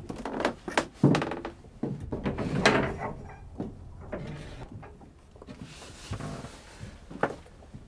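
A cabin door being opened and handled, with knocks, thuds and footsteps in a small room. The loudest clatter comes in the first three seconds, then the handling goes quieter, with one more knock near the end.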